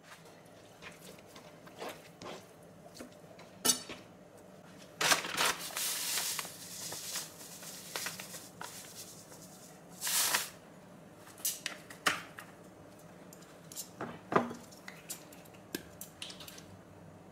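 Kitchen prep sounds: a knife tapping and slicing raw pork on a plastic cutting board, then scattered clinks and knocks of utensils and bottles against a glass bowl as seasonings go onto the sliced pork, with two longer hissing passes, the first about five seconds in and the second about ten seconds in.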